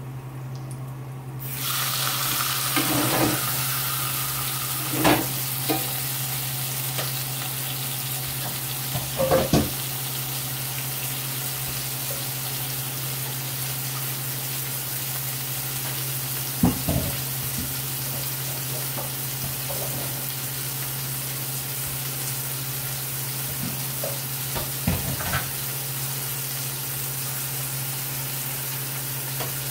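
A marinated pork chop searing in a hot cast-iron skillet. The sizzling starts suddenly about a second and a half in as the meat goes into the fat and then holds steady. A few short knocks are heard along the way.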